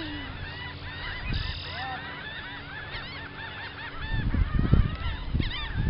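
A large flock of birds calling continuously, many short overlapping calls. About four seconds in, loud low rumbling thumps come in over them.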